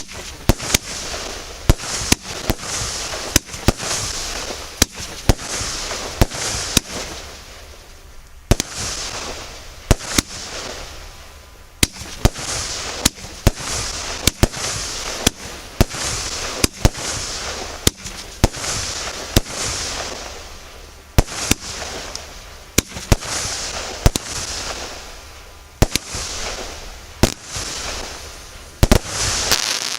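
A 25-shot consumer fireworks cake of 20 mm (0.8-inch) calibre firing in sequence. Sharp bangs come about once a second, each followed by a swelling hiss and crackle from the glitter and crackling effects, with short lulls about eight and twelve seconds in.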